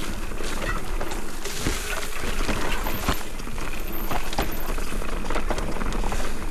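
Electric mountain bike descending a dirt trail: tyre noise over the ground with frequent irregular clicks and knocks from the bike rattling over rough terrain, under a steady rumble of wind on the camera's microphone.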